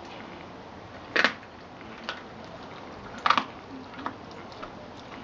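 Collie chewing raw rabbit with its back teeth, crunching through meat and bone: two loud crunches about two seconds apart, with a few fainter clicks of teeth between and after.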